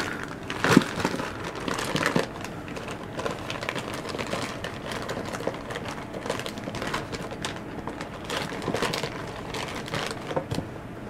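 Plastic bait packages crinkling and rustling as hands rummage through a plastic storage tub full of bagged soft-plastic lures, with irregular clicks and knocks of packages against the tub.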